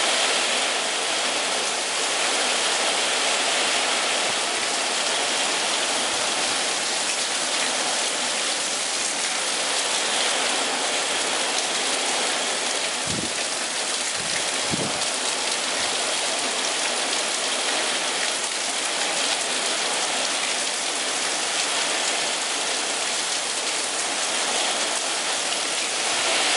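Heavy rain from a hurricane rain band pouring down in sheets, a steady hiss. Two short low thumps about halfway through.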